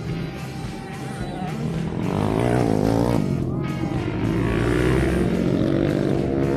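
Motorcycle engines rising and falling in pitch as bikes ride through a dirt-track turn, louder from about two seconds in, with background music underneath.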